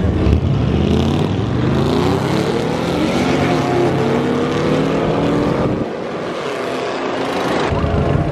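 Two cars launching off a drag strip start line, their engines revving and rising in pitch as they accelerate away down the track. The sound drops off suddenly about six seconds in.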